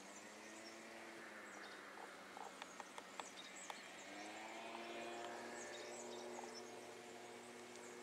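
Light footsteps on a stony dirt path, over a faint steady hum whose pitch drifts slowly. The hum fades about a second in and comes back stronger about four seconds in.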